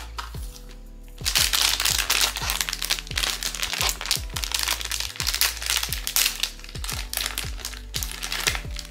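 Crinkling and crackling of a blind box's plastic wrapping being handled, starting about a second in and stopping just before the end, over background music.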